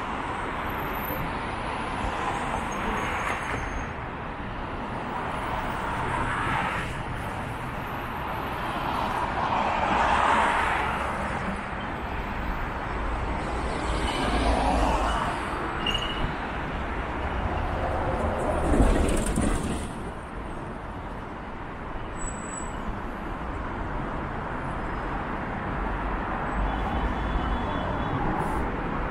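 Street traffic at a city intersection: a steady hum of cars and a city bus, swelling three times as vehicles pass close by.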